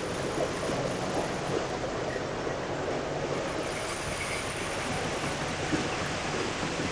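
GO&GO automatic car wash machine running: a steady hiss of water spray and rotating foam brushes over a low, even motor hum.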